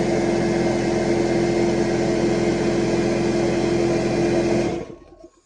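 Dewalt DWFP55126 6-gallon pancake air compressor pump running steadily, then shutting off abruptly near the end. This is the pressure switch cutting out once the tank has filled, at about 165 psi.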